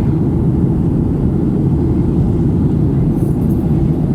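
Steady low rumble of an airliner's jet engines and airflow heard inside the passenger cabin.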